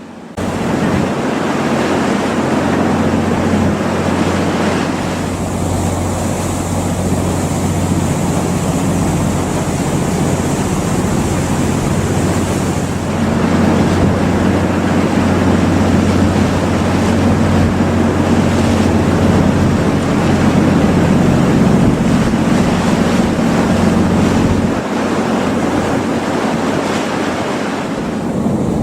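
A steady rushing of waves and wind with a low, even hum underneath, starting abruptly; a high hiss joins from about five to thirteen seconds in, after which the rush grows slightly louder.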